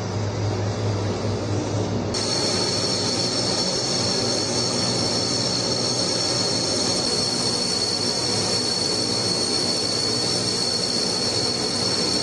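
Ilyushin Il-38's four Ivchenko AI-20 turboprop engines running as the aircraft taxis: a low hum at first, then from about two seconds in a steady high-pitched turbine whine over the engine noise.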